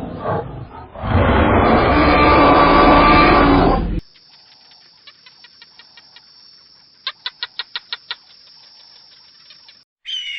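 An animal's loud, harsh call lasting about four seconds, which cuts off suddenly. After it come faint short chirps, with a quick run of about ten sharper chirps or clicks near the middle of the quiet part.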